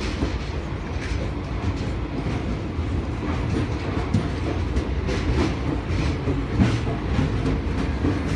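Passenger coaches of an express train rolling past a platform, with a steady low rumble. The wheels give out irregular clicks on the track, about one or two a second.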